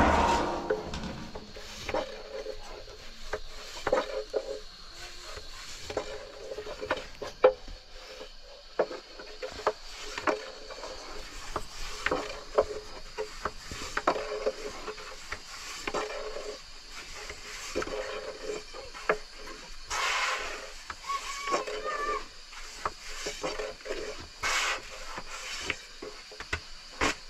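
Irregular light knocks and clicks of wooden objects, with stretches of rubbing or scraping.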